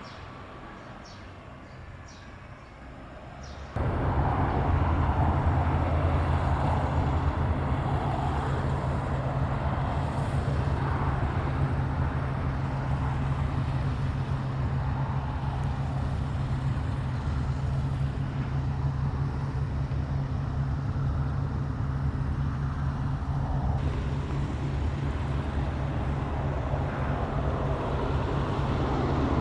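Steady low rumble of wind and road noise on a moving bicycle's camera. It starts abruptly about four seconds in, after a quieter stretch with a few faint ticks.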